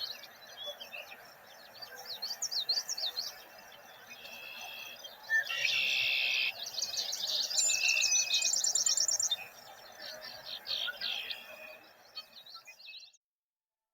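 Several wild birds singing and chirping together in woodland, with quick overlapping high chirps and warbles and a dense buzzy trill about halfway through. The sound cuts off abruptly near the end.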